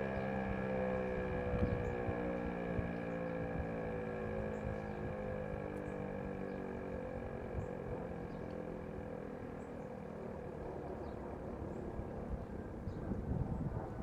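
Outdoor emergency warning siren winding down at the end of its test, its tone slowly falling in pitch and fading, with wind gusting on the microphone.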